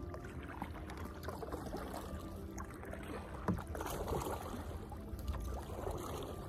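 Kayak paddles dipping and splashing in the water, with one sharp knock about halfway through.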